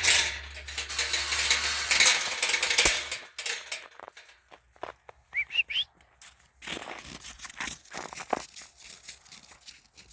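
Horses moving about, with uneven hoof knocks and loud rustling noise. Two or three short rising whistles come about five seconds in.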